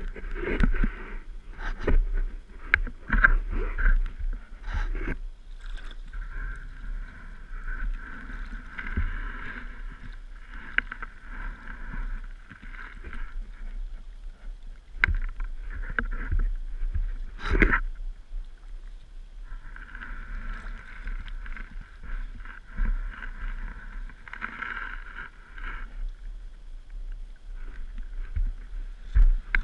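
Sea water sloshing and splashing as someone wades in the shallows with a metal detector and sand scoop, with scattered knocks and splashes and stretches of steady hiss that come and go.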